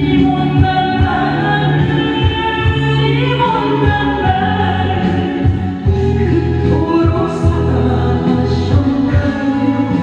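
A woman singing a gospel praise song into a microphone over instrumental accompaniment with steady low bass notes.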